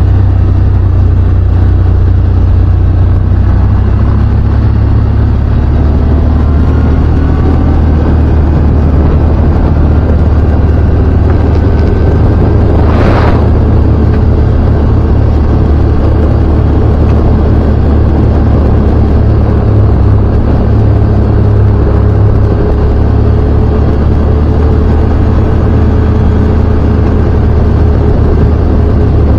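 CFMoto ZForce 950 Trail side-by-side's V-twin engine running at a steady cruise, heard from the cab as a loud, deep, continuous drone. The pitch shifts slightly over the first few seconds, and there is a brief rush of noise about halfway through.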